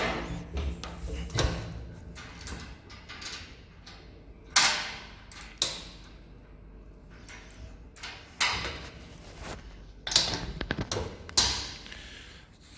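Intermittent clunks and knocks, about seven spread over several seconds, from the stainless steel ribbon blender being handled.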